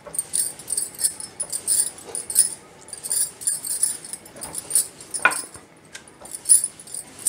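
A wooden rolling pin rolls out maida dough on a granite rolling board, with irregular light clicks, knocks and scrapes as the pin and stone board shift. One louder sharp knock comes a little after five seconds in.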